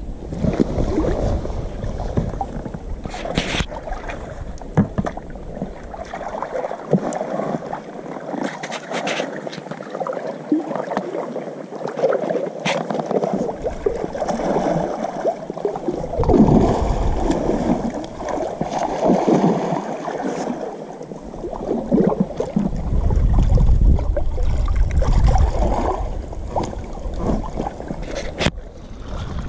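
Water sloshing and gurgling against the inflatable tubes of a pontoon float tube as it moves on the river, with a few sharp clicks and heavier low rumbling near the end.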